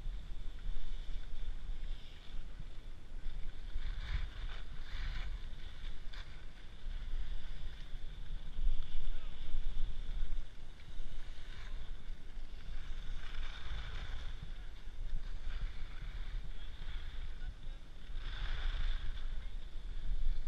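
Wind buffeting an action camera's microphone while skiing downhill, a steady low rumble, with the hiss of skis scraping across packed snow swelling up a few times during turns.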